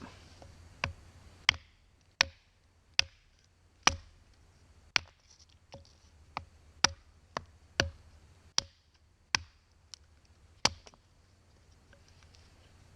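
Hatchet chopping into a resin-soaked pine fatwood stick: about fourteen sharp strikes, irregularly spaced at roughly one every half second to second, which then stop.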